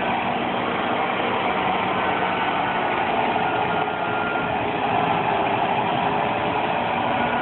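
M1 Abrams tank's AGT1500 gas turbine idling: a steady rushing hiss with a faint high whine running through it.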